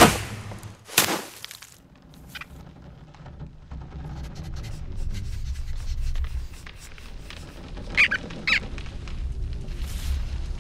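Cartoon sound effects. A sharp snap at the start and a second, longer swish-like hit about a second in, then a low rumble that slowly builds. Near the end come two short high squeaks, half a second apart.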